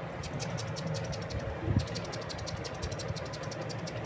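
A machine running steadily: a low hum with a fast, even ticking, and one short low sound a little under two seconds in.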